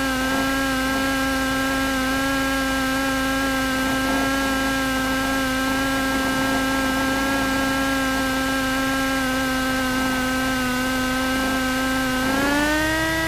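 Cessna 172S's Lycoming four-cylinder engine heard through the cockpit headset intercom as a steady droning tone, rising in pitch near the end as power is brought up for the takeoff roll.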